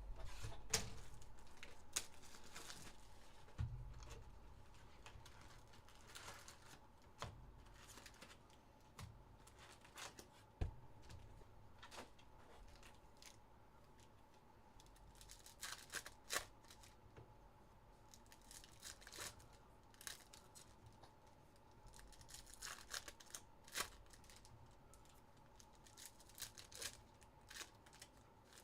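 Trading card packs and wrapping being torn open by hand: scattered bursts of ripping and crinkling wrapper, with a few soft knocks as the packs are handled.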